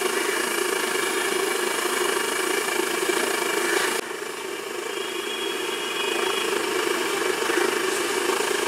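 Steady engine-like rumble with a hiss over it, the background of a roadside stall deep-frying banana chips in a large iron kadai. It drops slightly at a sudden cut about four seconds in, then builds back.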